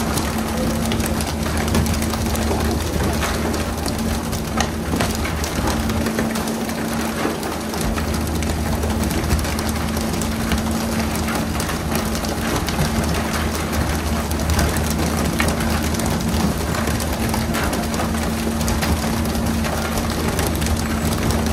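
Pole-and-line tuna boat's engine humming steadily under a constant rain-like hiss of water spraying onto the sea, with frequent small knocks and slaps as tuna land on the deck.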